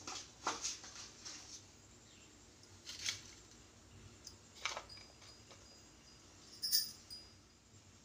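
Faint handling noises: a handful of short, scattered clicks and scrapes, such as a handheld phone or the steel tiffin bowls being touched, over a quiet room hiss.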